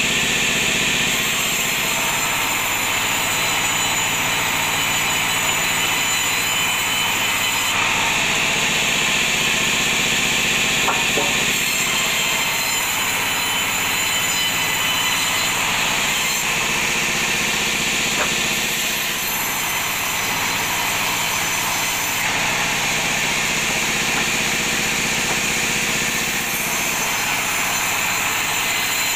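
Bandsaw running steadily while ripping teak slabs into boards. The blade's high singing note shifts every few seconds as cuts begin and end.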